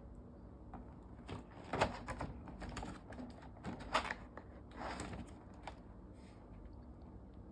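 Pages of a spiral-bound activity workbook being flipped and handled: a few short papery swishes and taps, the loudest about two seconds and four seconds in.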